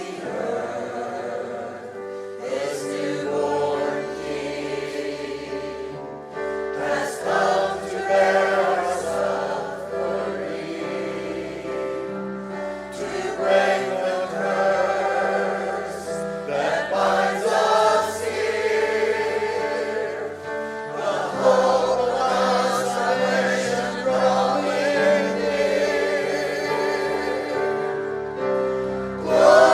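Church choir singing a Christmas worship song in phrases over sustained musical accompaniment.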